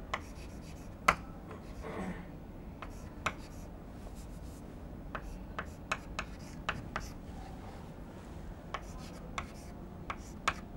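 Chalk writing on a chalkboard: irregular sharp taps and short scratchy strokes as an equation is written out, over a faint steady hiss.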